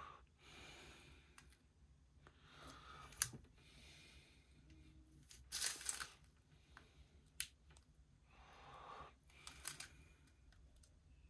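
Faint rustling and crinkling of small plastic bags of diamond painting drills being handled on a plastic-covered canvas, in a few short spells, with a couple of sharp clicks.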